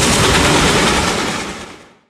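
Rumbling noise of a passing train, continuing after its horn, that fades away in the last second.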